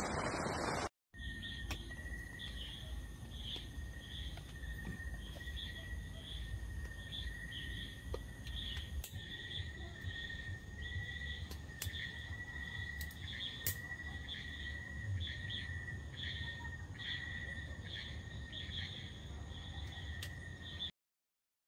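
A second of wind noise, then, after a short break, night insects: a steady high cricket trill with a second, higher-pitched insect chirping over and over above it, and a low rumble underneath. The sound cuts off about a second before the end.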